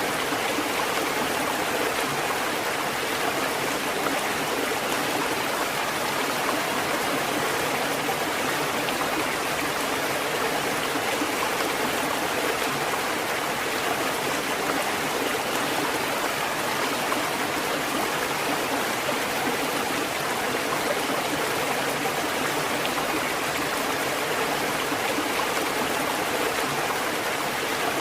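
Water from a fountain running steadily, an even rush of flowing water without knocks or breaks.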